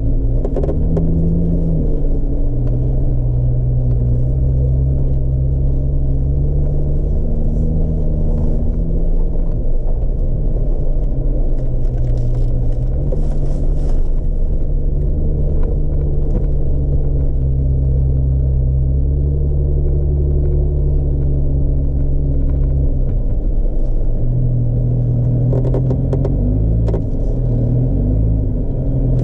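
Jeep engine running at low trail speed, a steady low drone whose pitch rises and falls a little with the throttle. A few clicks and rattles come through, mostly near the middle and near the end.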